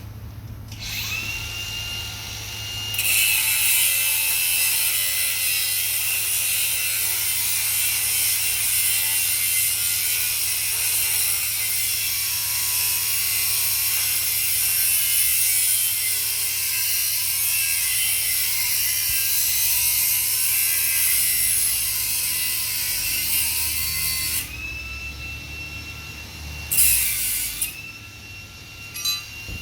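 A power tool, ratchet-type, running in a long stretch: the motor spins up to a steady whine over a dense rattling hiss. It stops about 24 seconds in, and runs briefly again near the end.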